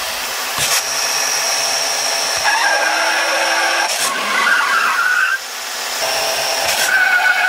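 Talking Lightning McQueen toy carrying out a programmed drive sequence, its speaker playing race-car engine and tyre-screeching sound effects.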